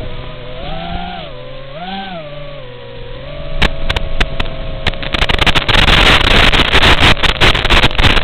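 Furibee X215 Pro quadcopter's motors and propellers buzzing, the pitch swelling up and down twice as the throttle is worked. From about three and a half seconds in, crackling static with sharp clicks builds up and becomes the loudest sound: the analog FPV link breaking up.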